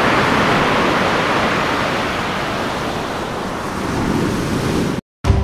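Steady rushing noise of sea surf and wind, easing off a little and then swelling again about four seconds in, before it cuts off abruptly.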